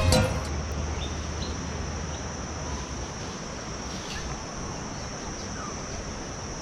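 Insects in the forest making a steady, unbroken high-pitched buzz at one pitch, over a soft background hiss.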